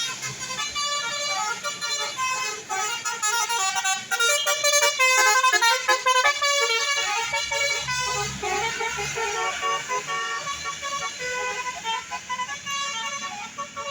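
Bus telolet horn: a bus's multi-trumpet musical air horn playing quick runs of stepped notes, several pitches sounding at once. It is loudest about five to seven seconds in.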